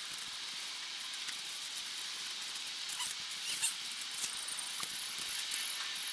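Jackfruit flesh being pulled apart by hand: small crackles and soft tearing of the sticky, fibrous pulp over a steady hiss.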